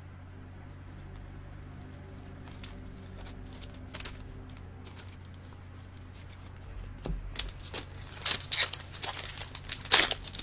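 Trading-card pack wrappers crinkling and tearing, with cards being handled, over a steady low hum. The first several seconds hold only a few faint clicks; the crinkling starts about seven seconds in and is loudest near the end.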